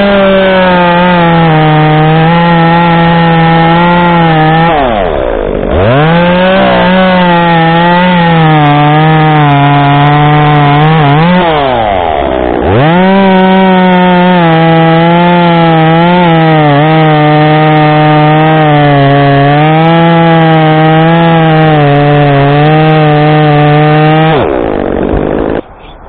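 Stihl chainsaw cutting cherry wood at full throttle, in three long cuts. The engine dips briefly about five and twelve seconds in, then is let off near the end.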